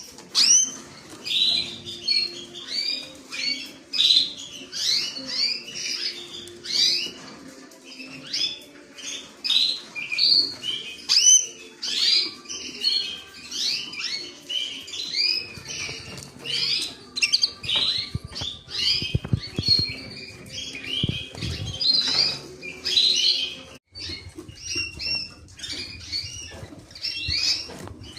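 Creamino canary chirping in quick runs of short, upward-sweeping high notes, several a second. A few low thuds come a little past the middle.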